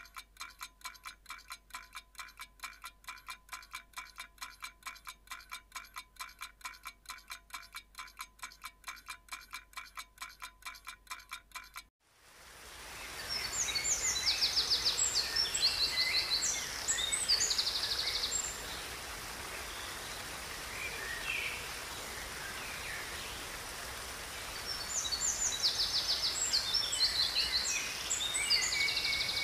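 A steady rhythm of chime-like tones, about five a second, cuts off about twelve seconds in. It gives way to the steady rush of a river, with songbirds singing fast trilled phrases in two bouts.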